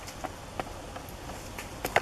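A dog's paws wading through shallow muddy water: a few soft, scattered splashes and clicks, the sharpest near the end.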